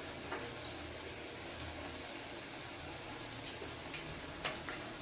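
Hot oil sizzling steadily as sliced chips fry, with a few faint clicks.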